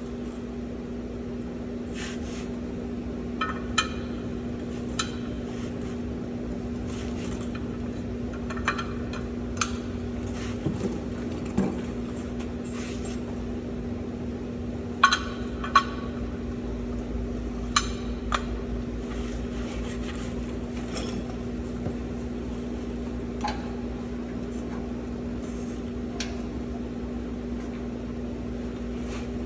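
Scattered sharp metallic clinks and taps of hand tools against truck brake parts, the two loudest close together about halfway through, over a steady mechanical hum.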